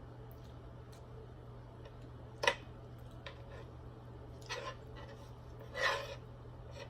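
Quiet eating sounds: a sharp click about halfway through and a couple of soft mouth noises later, over a steady low hum.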